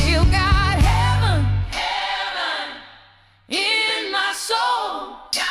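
Slow gospel-blues song: a drawn-out, wordless vocal run with heavy vibrato over a deep bass groove. About two seconds in, the band drops away and the sound fades almost to nothing. The voice comes back alone with held, wavering notes.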